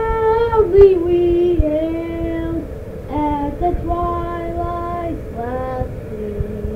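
A single high voice singing slow, long-held notes that slide between pitches, with short breaks between phrases, over a low background rumble.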